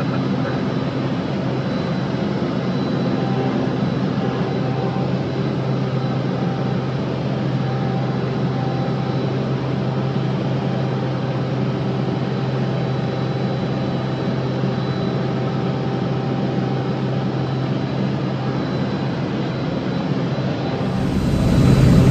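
Single-engine light plane's piston engine and propeller droning steadily, heard from inside the cockpit in flight. Near the end the sound changes suddenly to a louder, deeper rumble.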